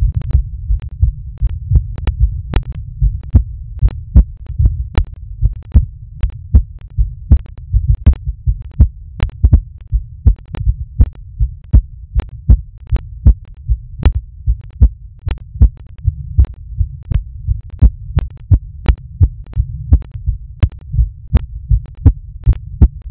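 A human heartbeat amplified through a smartphone heartbeat-listening app: low, muffled paired thumps (lub-dub) at about 81 to 86 beats a minute over a steady low rumble, with a sharp click on each beat.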